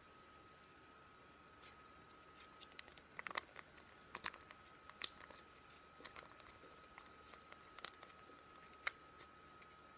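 Packaging of a face-mask sachet crinkling and crackling as it is handled, in scattered sharp crackles starting about two seconds in, loudest around the middle and again near the end, over a faint steady high tone.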